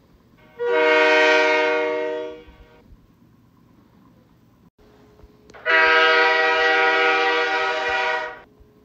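Two diesel locomotive horn blasts, each a steady chord of several notes. The first, about two seconds long and starting about half a second in, is the film sound effect for Diesel 10's horn. After a short gap comes a second, about three-second blast from another diesel horn.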